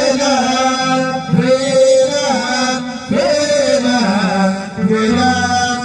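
Dhofari folk music: a man singing long, wavering notes over held instrumental notes.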